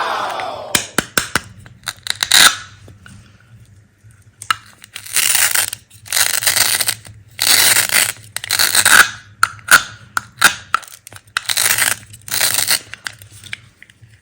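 Repeated cutting strokes through a pile of hard candy, each a rasping scrape of about a second, with sharp clicks of pieces knocking between them. A short falling tone sounds in the first second.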